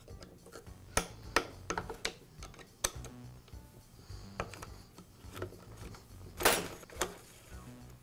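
Scattered sharp clicks and taps of a screwdriver and fingers on the plastic air filter base and housing of an Echo handheld leaf blower, as the filter base is unscrewed and taken off, with a louder, longer scrape of plastic about six and a half seconds in. Soft background music underneath.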